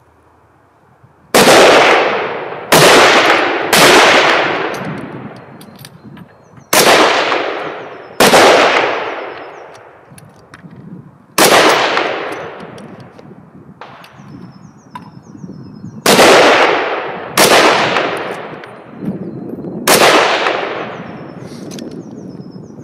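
Rifle firing nine single shots at uneven intervals, each followed by a long echoing tail.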